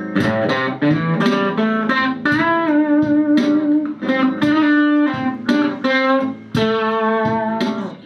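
Stratocaster-style electric guitar playing an unaccompanied blues lead phrase in A minor pentatonic with the flat fifth: picked single notes, a quick slur to and from the ♭5, an upward string bend, and a long held note in the middle.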